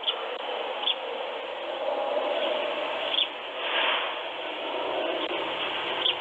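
Steady hiss of outdoor ambience through a doorbell camera's microphone, with a few faint clicks and a brief louder rush a little after midway.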